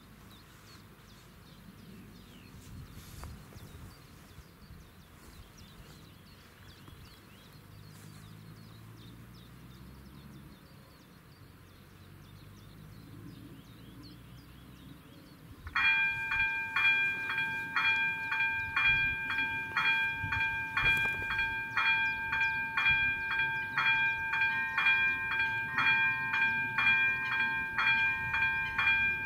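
Faint outdoor background, then about 16 s in the level crossing's AŽD 97 warning bell starts: a loud electronic ding repeating steadily, the crossing activating for an approaching train.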